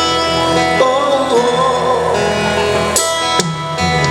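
Live band music from street buskers: a slow Malay pop ballad with guitar to the fore, played in a short instrumental gap between sung lines.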